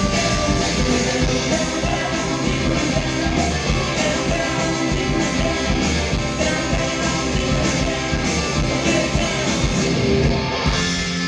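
Live rock and roll trio playing loud and fast: electric guitar, bass guitar and drum kit. Near the end the drums stop and held guitar and bass notes ring on.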